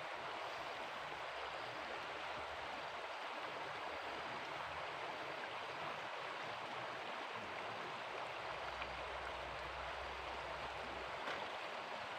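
Steady rushing of flowing river water, an even hiss that holds at one level throughout, with a faint low rumble for a couple of seconds near the end.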